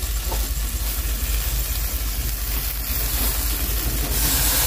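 Lobster sizzling on a grill, a steady hiss over a constant low rumble.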